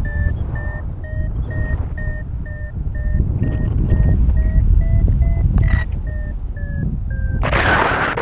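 Paraglider's variometer beeping about twice a second, its pitch rising a little and then falling back: the climb tone that signals the glider is rising in lift. Steady wind rumble on the microphone runs underneath, and near the end a loud gust hits the microphone.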